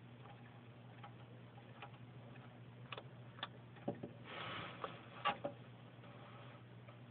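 Bearded dragon biting and chewing a piece of carrot taken from the fingers: a few sharp crunching clicks over about three seconds, with a short rustling burst in the middle, over a steady low hum.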